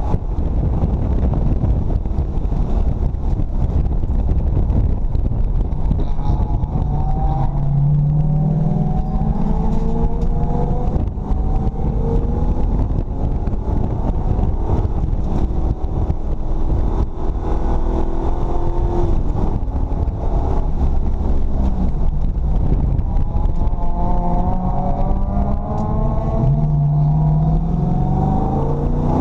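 Ford 351 Windsor V8 in a BMW E34 race car at full throttle, heard inside the stripped cabin: its note climbs in pitch as the car accelerates, several times over, over a constant heavy rumble and road and wind noise.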